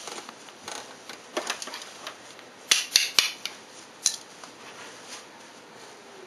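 Small toy blocks clacking and knocking together as they are handled, a handful of sharp, irregular clicks, the loudest few about three seconds in.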